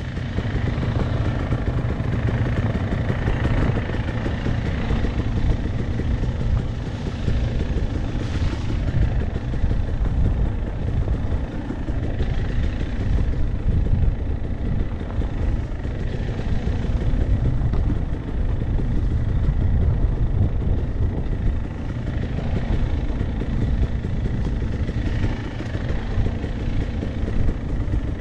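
Dirt bike engine running while being ridden along a dirt trail, a steady engine noise with its level swelling and dipping slightly.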